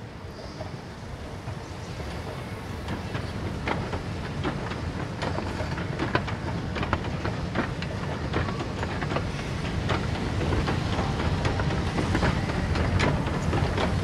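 Electroacoustic soundscape built from city field recordings: a low rumble that slowly grows louder, with irregular clicks and rattles coming in a few seconds in and growing denser.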